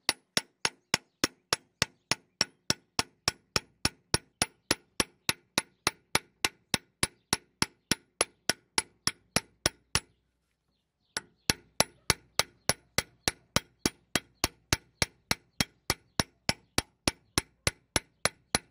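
Peening hammer striking a scythe blade on a small steel peening anvil (babka), about three sharp, ringing metal strikes a second, with a break of about a second just past the middle before the strikes resume. This is the first peening of the blade, drawing out the steel of the edge rather than forming the edge itself.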